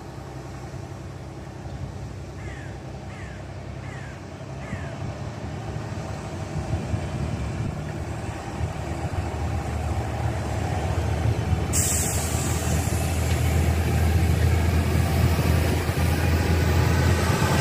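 Diesel engine of a Balfour Beatty engineering train running with a low steady drone as it approaches and passes, growing steadily louder. A high hiss starts suddenly about two-thirds through. A few short falling chirps come a few seconds in.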